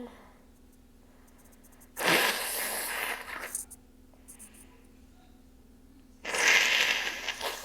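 Two loud sneezes from a person, about four seconds apart: the first about two seconds in, the second about six seconds in, each a sudden burst lasting over a second.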